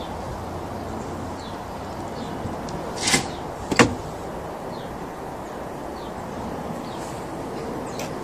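Two sharp knocks less than a second apart, about three seconds in, over a steady background noise.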